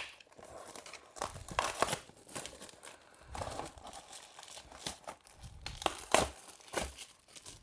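Plastic wrapping on a trading card box crinkling and tearing as it is unwrapped, with irregular crackles and a few sharper rips.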